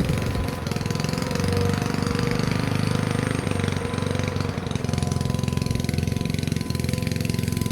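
Tornado warning sirens sounding a steady tone that swells and fades, heard faintly under a louder, low, fast-pulsing rumble close by.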